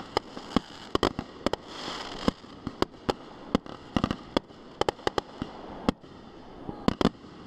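Fireworks display going off in a rapid, irregular string of sharp bangs, with a brief hissing crackle about two seconds in.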